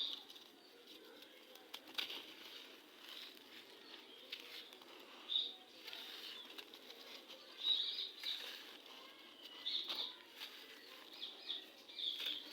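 Gritty red sand crumbling, with irregular crunchy crackles and small clicks and a few louder crumbles about five and eight seconds in.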